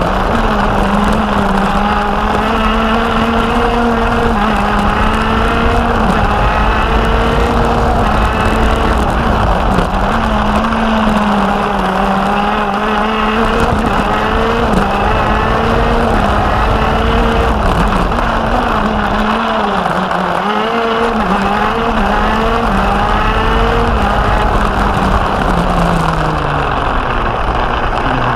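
Racing kart's two-stroke engine heard onboard at speed, its pitch rising along the straights and dipping as the kart slows for the corners. It dips deepest about two-thirds of the way through and falls away near the end.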